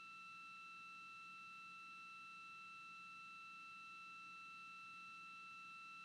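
Near silence with a faint, steady electronic tone holding several high pitches unchanged, over a faint low hum.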